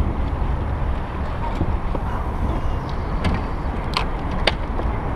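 Steady low rumble aboard a small open boat, wind buffeting the microphone, with two sharp clicks near the end.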